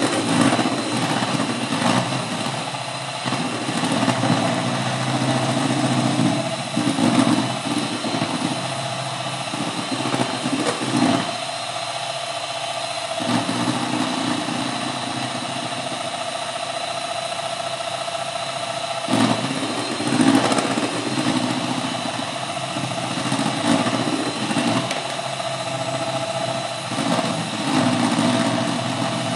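Electric hand mixer running steadily, its beaters whipping thick egg-white marshmallow meringue in a metal pot; the low churning rises and falls every few seconds as the beaters move through the mix.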